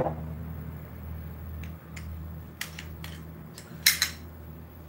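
Metallic clicks and clacks of a pistol and its magazine being handled, a scattering of small ticks with a sharper pair of clacks about four seconds in.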